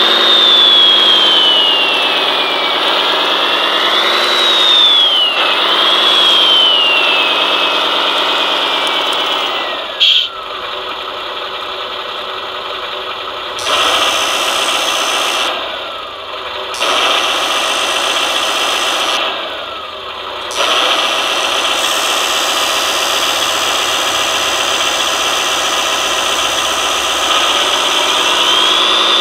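Electronic sound module of an RC scale truck playing a diesel engine, revving up and down, with a high whine that rises and falls in pitch alongside. About ten seconds in it settles into a steadier, quieter run, changing briefly a few times.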